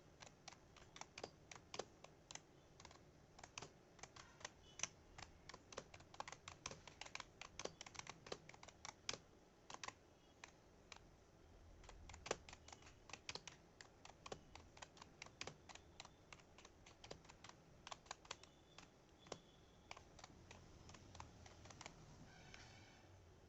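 Typing on a Havit KB487L membrane keyboard: a quick, irregular run of soft key clicks, faint.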